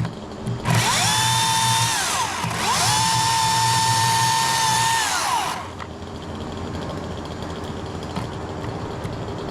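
Electric chainsaw making two cuts, each time spinning up to a steady whine, cutting briefly and then for about three seconds, then winding down. These are the face cut, the notch, being cut into the oak.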